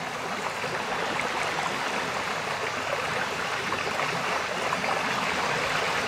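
Steady rushing and trickling of flowing water, an even hiss with no rhythm or pitch.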